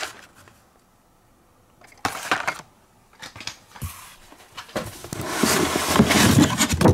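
Hands handling cardboard inside a shipping case: a short rustle about two seconds in and a few light knocks, then a longer stretch of cardboard scraping and rustling, loudest near the end.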